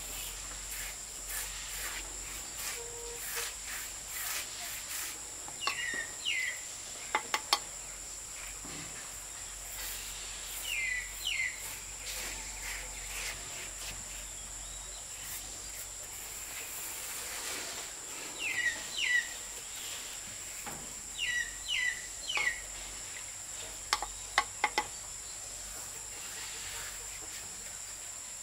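Outdoor forest sound: insects droning steadily on one high note, with a bird repeating short chirping calls, mostly in pairs, several times. A few sharp knocks come in quick pairs, about seven seconds in and again near the end.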